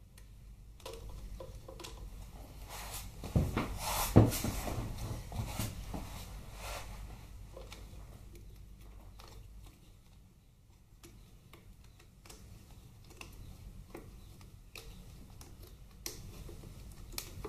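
Hands handling a wiring harness and its plastic plug clip under a motorcycle's voltage regulator: scattered clicks and rustles, with two louder knocks about three and four seconds in.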